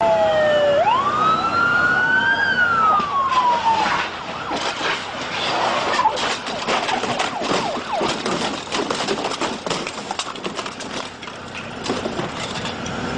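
Police siren wailing in one long rise and fall, then cutting out about four seconds in. After it comes a dense, irregular clatter of street noise with many short knocks and rattles.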